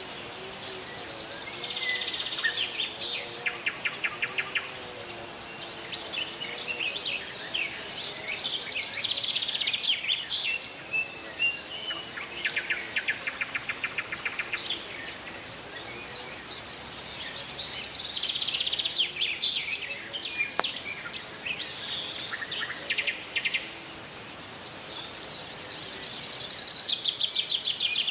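Several songbirds singing, with fast trilled and warbling phrases that come and go every few seconds.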